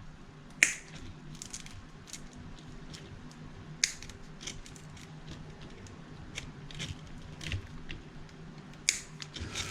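Small diagonal cutters snipping the plastic overbraid of a cable, giving a string of irregular, faint clicks and snips. The sharpest come about half a second in, near four seconds and near nine seconds.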